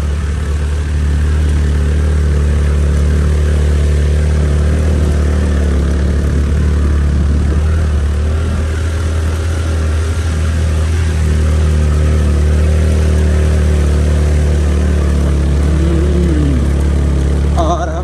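Scooter engine running steadily under load while climbing a steep road, over a heavy low rumble.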